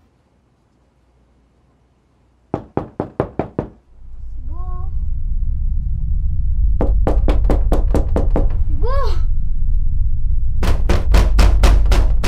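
Rapid knocking on a door in three bursts, about five knocks a second, with a child's short cries between the bursts. A deep low rumble swells in about four seconds in and keeps building under the knocking.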